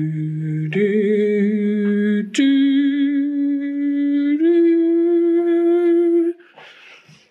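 A person humming a slow rising fanfare: four long held notes, each a step higher than the last.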